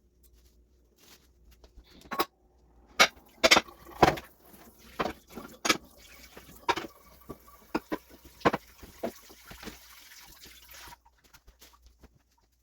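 Kitchen tap running into the sink while hard items clatter and knock about in it; the water shuts off about eleven seconds in.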